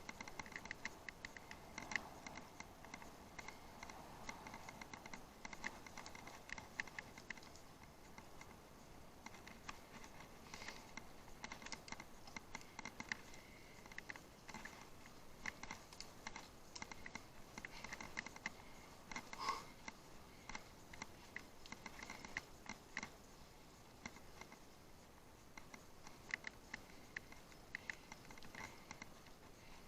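Faint, irregular clicking and light rattling from a bicycle ride over rough ground, with no steady rhythm.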